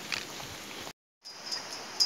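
Footsteps and rustling on a forest dirt trail, with a few short crunching strokes; about halfway the sound drops out completely for a moment. After the gap a faint high chirp comes and goes over the steady hiss.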